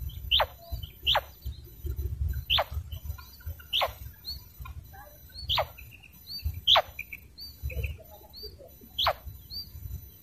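Female quail (batair) calling: seven sharp, quick downward-sweeping notes at irregular intervals. Fainter small high chirps sound between them, over a low rumble.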